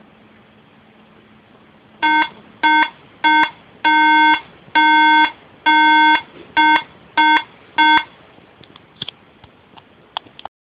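2010 15-inch MacBook Pro (A1286) sounding the SOS beep pattern: three short beeps, three long, three short. This is the startup fault code that the repairer traced to a corrupted or damaged BIOS (boot ROM) chip. A few faint clicks follow.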